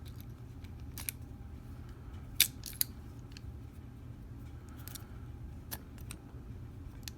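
Scattered small metallic clicks and taps of hand tools working at a padlock, over a steady low hum.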